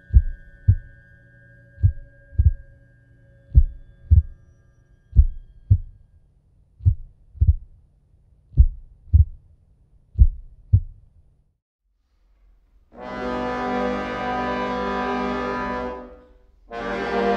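Heartbeat sound effect: deep double thumps, about one pair every second and a half, over a low hum, stopping about eleven seconds in. After a short silence, a loud sustained brass-like chord of music comes in twice.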